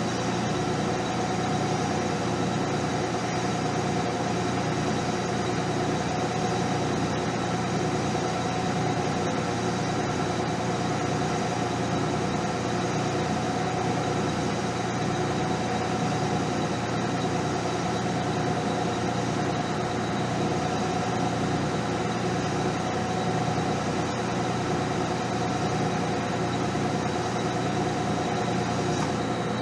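Metal lathe running, turning a small part held in a 5C collet with a carbide insert tool: a steady machine hum with a constant whine.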